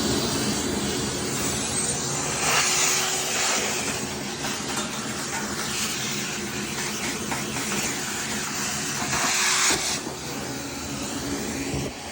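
A motor-driven machine running steadily with a loud rush of air over a low hum, the hiss swelling a couple of times.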